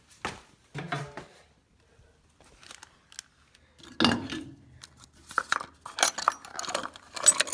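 Metal hand tools clinking and clattering as someone rummages through them for a wrench. There are a few scattered knocks at first, then busier clatter in the second half.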